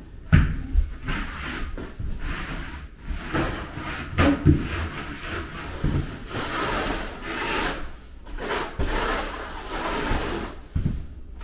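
Hands rubbing and pressing a plastic uncoupling mat down into thinset, with a few thumps. From about halfway through, a notched trowel scrapes thinset mortar across a plywood subfloor in repeated strokes of about a second each.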